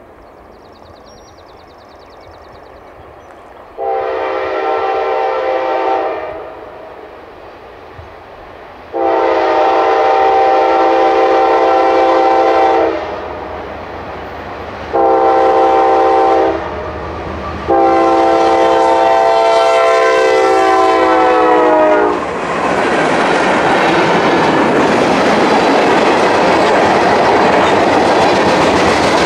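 Locomotive multi-chime air horn sounding the grade-crossing signal: long, long, short, long. The last blast sags slightly in pitch as it ends, and then the train passes close by with a loud, steady rumble and wheels clicking over rail joints.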